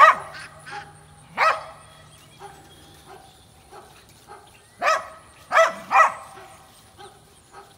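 A dog barking: five sharp barks, about a second apart at first and then in a quick pair about five to six seconds in, with fainter short sounds between them.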